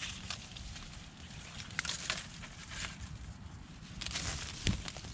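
Dry grass, twigs and leaf litter rustling and crackling as they are gripped and pulled aside by hand, with scattered sharp snaps over a steady low rumble.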